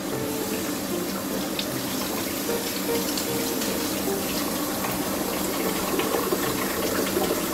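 Kitchen tap running into a sink, a steady rush of water splashing, with vegetables being rinsed under it.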